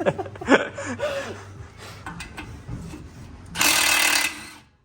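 A few short squeaky sounds sliding up and down in pitch, then a power tool runs in one short, loud burst of under a second near the end.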